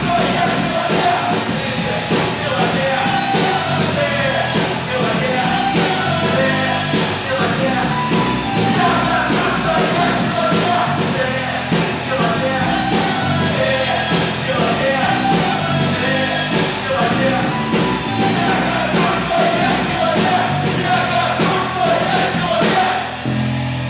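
A rock band playing live in a room: a man singing into a microphone over distorted electric guitars, bass, keyboard and a steady drum beat with cymbals. Near the end the drums stop and the guitars and bass are left ringing on a held chord.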